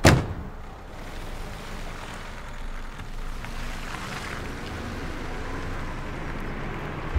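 A car door slams shut, then a car's engine and tyres rumble steadily as it drives off.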